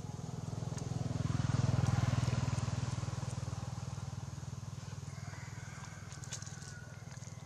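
A motor vehicle's engine passing by: a steady low drone that swells to its loudest about two seconds in, then slowly fades.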